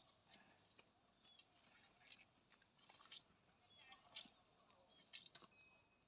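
Near silence, broken by a few faint, scattered clicks and ticks.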